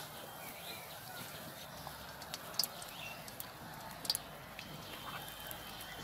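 Malpua batter deep-frying in hot oil in a wok, a steady sizzle, with a couple of sharp clicks about two and a half and four seconds in as a wooden spatula works the cake in the pan.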